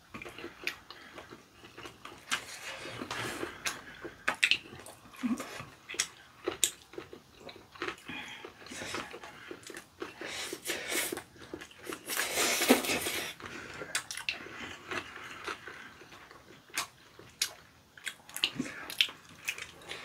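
Two people eating rabokki up close: wet chewing, mouth smacks and slurping of ramen noodles and rice cakes, with one longer, louder slurp about two-thirds of the way through.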